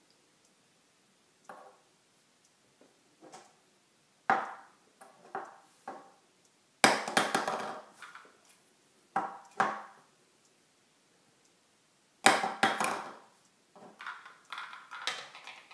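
Irregular knocks and rattling clatter of small hard objects being handled, with two louder bursts of clatter about 7 and 12 seconds in.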